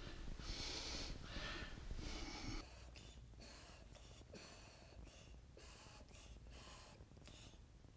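Faint breathing with soft handling noises: a few breaths in the first couple of seconds, then scattered light clicks.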